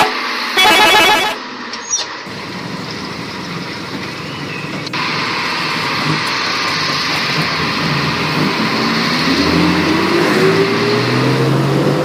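Bus 'telolet' horn tune that cuts off just over a second in. A bus engine sound follows, running steadily and then rising in pitch over the last few seconds as it revs.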